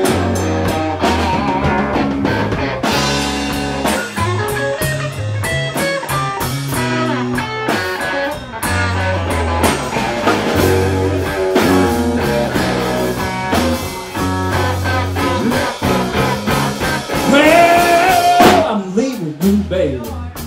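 A blues band playing a slow blues instrumental passage: lead guitar over a bass line and drums, with a loud, bending held note near the end.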